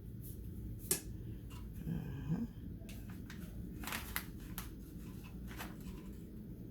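A few faint clicks and taps of hands and utensils handling a pie crust in its pan: one about a second in, a quick cluster around the middle and one more later, with a brief low hum of a voice near two seconds in.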